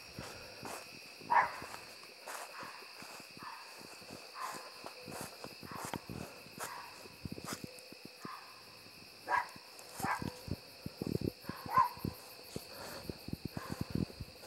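Crickets chirring steadily in the dark, with short yelping animal calls at irregular intervals, the loudest about a second and a half in and near twelve seconds.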